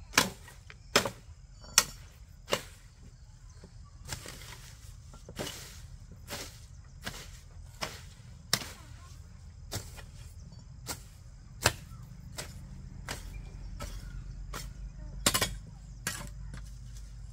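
Repeated sharp strikes, about one a second, some louder than others, with gaps growing longer in the second half. A low, steady rumble runs underneath and grows louder near the end.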